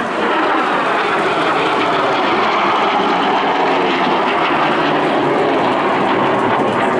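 Jet engine of a Polish-built MiG-17 (Lim-5), a single centrifugal-flow turbojet, running loud and steady as the fighter flies its display.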